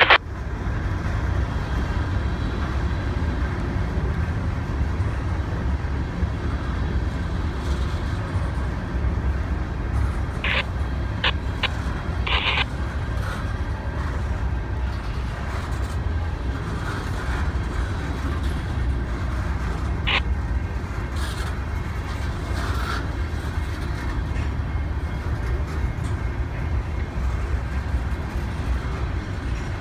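Empty covered hopper cars of a freight train rolling past, a steady low rumble of steel wheels on rail. A few short sharp sounds cut through about ten to twelve seconds in and once more about twenty seconds in.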